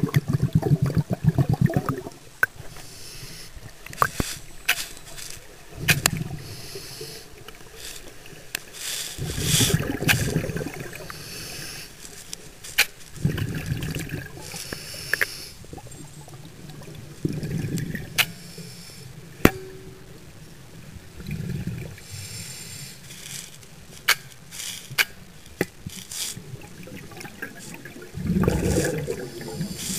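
Scuba regulator exhaust bubbles rumbling and gurgling underwater in repeated bursts every few seconds as a diver breathes out, with sharp clicks in between.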